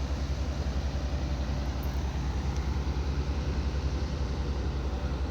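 Excavator diesel engine running steadily with a low, even throb.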